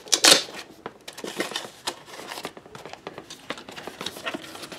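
Paper and cardboard being handled, rustling and crinkling with many small taps and clicks, loudest just after the start.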